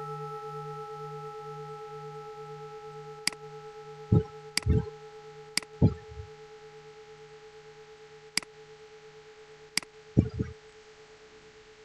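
Recorded temple bell ringing out after a strike, its hum slowly fading with a low pulsing beat under the higher tones. A few short sharp clicks and dull thumps come and go over it; the loudest thump is about ten seconds in.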